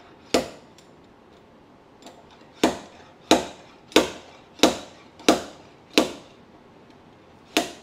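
Hand slide hammer from a paintless dent removal kit yanking a small pull tab set with structural adhesive on the car's dented body panel: eight sharp knocks as the weight hits its stop. The first comes alone, then six follow about two-thirds of a second apart, and one more comes near the end. The glued tab holds through the pulls.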